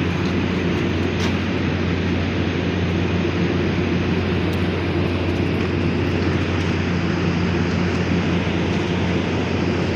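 Steady drone of steel fabrication shop machinery: a constant low hum under an even rush of noise, with no breaks or changes.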